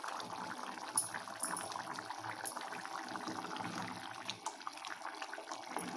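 Chicken curry bubbling in an open clay pot, a steady crackling simmer with a few sharp pops about a second in and twice more soon after. A wooden spoon stirs through the curry in the second half.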